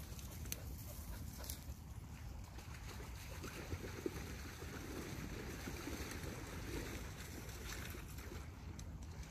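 River water flowing and rippling past a stone bridge pier, a steady rushing that grows a little fuller in the middle. Wind rumbles on the microphone underneath.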